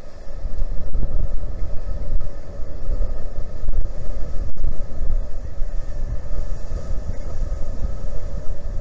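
Low, steady rumble and hum of the cruise ship Viking Polaris under way close by, mixed with wind buffeting the microphone.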